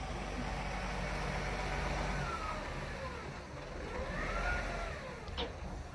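A motor vehicle's engine running with a steady low rumble. A whine rises and falls twice over it, and there is a sharp click near the end.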